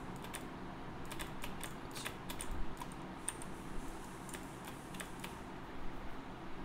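Computer keyboard keys clicking in an irregular run of quick taps, which stop a second or so before the end.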